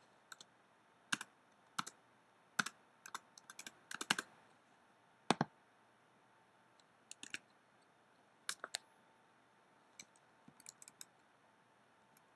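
Faint, irregular clicks of a computer keyboard and mouse: single taps and quick runs of a few, with gaps of up to a second or two between them.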